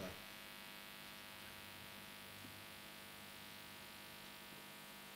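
Near silence: a faint, steady electrical mains hum with light hiss.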